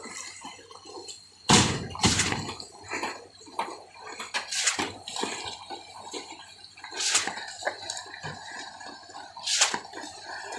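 Wet concrete slapping and splashing irregularly as it is poured and worked on a suspended floor slab. The loudest, heaviest splash comes about a second and a half in.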